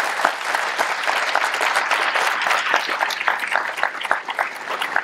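Audience applauding, many hands clapping at once, thinning out near the end so that separate claps stand out.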